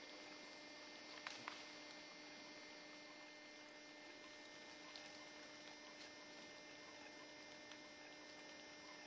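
Near silence: a faint steady electrical hum, with two faint clicks about a second and a half in.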